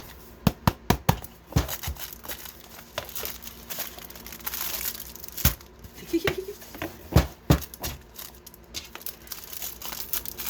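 Plastic packaging from a diamond painting kit crinkling as it is handled, with a run of sharp clicks and knocks, densest in the first second and a half and again around seven seconds in.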